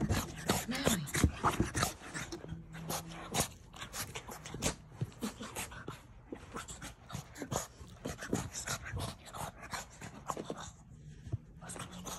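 Blue French bulldog puppy panting and making short whimpering noises as it rolls and wriggles on its back on carpet, with many quick scuffs of its body on the carpet. The short vocal sounds fall in the first couple of seconds.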